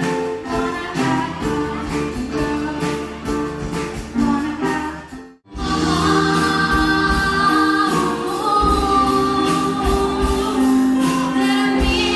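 Student performers' music with singing. About five seconds in it cuts out abruptly, and a different song with group singing begins.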